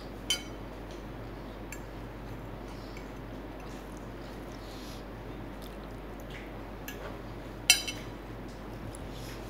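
A metal fork clinking against a ceramic plate: a light click about a third of a second in, a few faint taps while picking at noodles, and a sharp clink with a smaller one just after near the end as the fork is set down on the plate. A steady hiss sits underneath.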